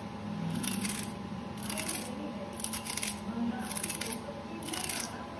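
Blade scraping the ridged skin of a bitter gourd (karela) in short, rhythmic strokes, about two a second.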